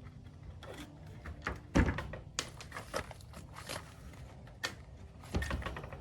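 Scattered knocks and clatters of hand work on a wooden structure, the loudest a sharp knock just under two seconds in, with a few more near the end.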